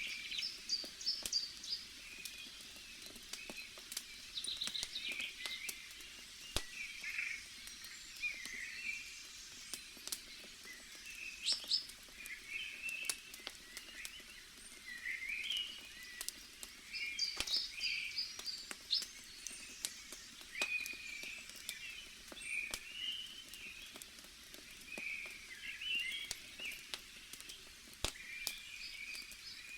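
Campfire crackling with scattered sharp pops, under birds chirping throughout with short, quick calls.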